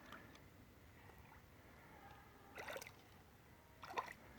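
Near silence: faint background hiss, with two brief faint sounds about two and a half and four seconds in.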